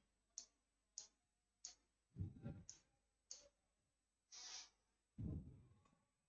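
Faint clicks and taps of a pen on the screen of a digital drawing board as lines are drawn: several sharp clicks about a second apart, two duller knocks, and a short hiss.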